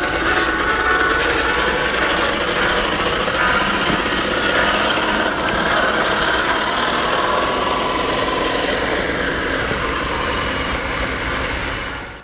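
Traxxas TRX-4 Defender RC crawler's electric motor and geared drivetrain whirring steadily as it drives over rough ground, fading out at the very end.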